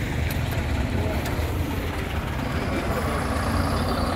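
Diesel truck engine idling with a steady low rumble.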